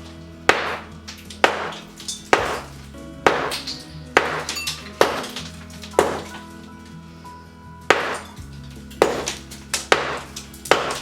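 Hammer blows on concrete, about one a second with a short pause about seven seconds in, each a sharp ringing strike.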